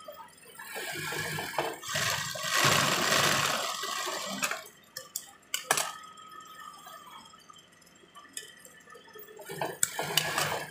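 Heavy denim jeans fabric being worked at a tailor's sewing machine: a loud stretch of swishing, rustling noise about one to four and a half seconds in as the garment is run through and pulled off the machine, a few sharp clicks around five to six seconds, then another short burst of rustling near the end.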